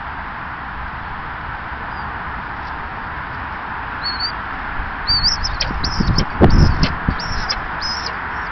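A burst of low flapping thumps about six to seven seconds in, the loudest sound: a common buzzard's wings as it takes off close to the camera. A small bird calls in rapid, short, high notes from about four seconds in, over a steady rushing background.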